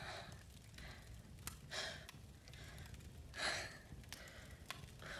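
A young woman breathing heavily in distress, with about four deep sighing breaths roughly a second and a half apart, the loudest about halfway through.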